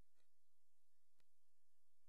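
Near silence: a faint low hum with two faint ticks, evenly spaced about a second apart.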